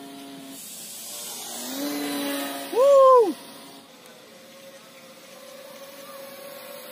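Motor and propeller of a small radio-controlled glider whining in flight. A steady hum gives way to a rising whine that swells loudest about three seconds in, then drops sharply in pitch and fades. A faint steady whine follows.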